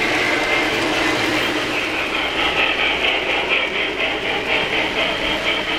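3-rail O-scale model trains running on the layout: a steady mechanical rumble of wheels and gearing on the track. From about two seconds in there is a fast, even clicking.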